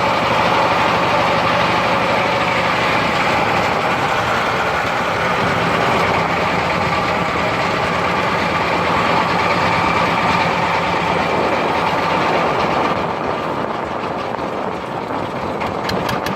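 Steady, dense din of many vehicle engines running together, like traffic at a standstill, with no separate bangs standing out.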